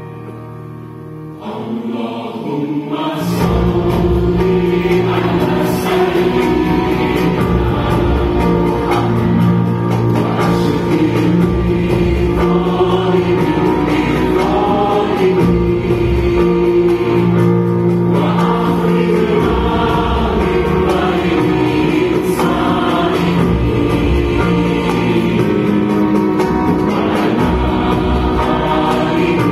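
Live orchestral music with a choir singing. It is soft for the first couple of seconds, then the full ensemble comes in about three seconds in.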